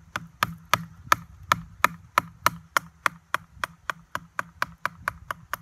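A cedar limb being split by batoning: a piece of firewood used as a baton strikes the back of a blade over and over, in a steady run of sharp wooden knocks about three a second. The blows grow a little lighter near the end.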